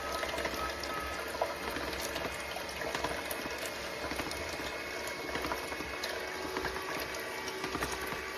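Severin slow juicer running, with a steady liquid gurgle and many small crackles.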